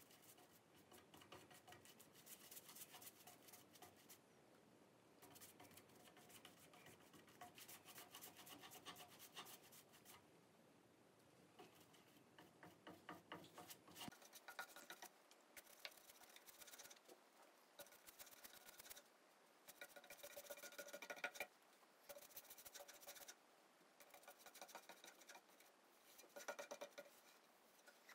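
Faint bristle paintbrush stroking a wet clear finish onto a hemlock-and-walnut board, a soft scratchy swish in runs of quick strokes with short pauses between them.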